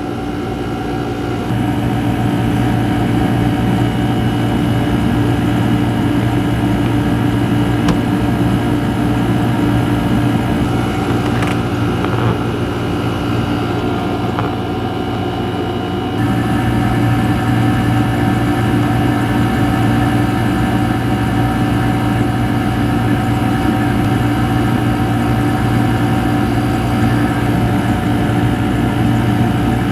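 Marinaire marine air conditioner running, its compressor and fan making a steady hum that grows a little louder about sixteen seconds in. The unit is low on refrigerant from a leak and is being topped up with freon as it runs.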